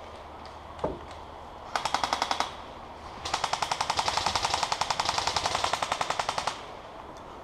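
Airsoft gun firing on full auto: a short burst of rapid, evenly spaced shots about two seconds in, then a longer burst of about three seconds. A single sharp click comes just under a second in.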